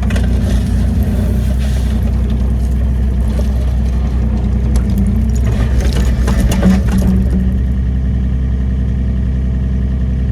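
Wacker Neuson EZ 38 mini excavator's diesel engine running steadily under work, with a spell of clattering and scraping from about five to seven and a half seconds in, after which the engine runs on alone.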